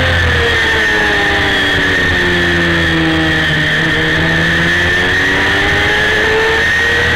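A Honda CBR250RR's 249 cc inline-four racing engine running hard at high revs, heard from a camera mounted on the bike. Its pitch sags gradually through the middle and climbs again near the end.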